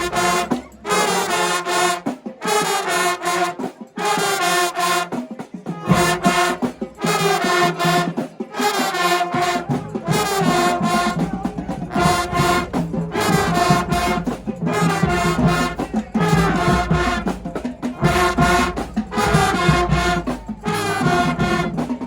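High school marching band playing, its brass section to the fore, in a series of short, loud chords separated by brief breaks.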